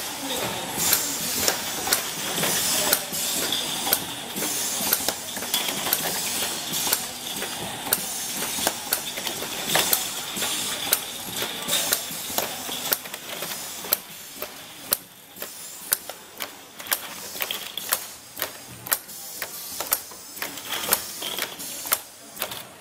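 Fully automatic four-colour pad printing machine running, printing plastic caps: a rapid series of sharp mechanical clicks and clacks, about one to two a second, over a steady hiss.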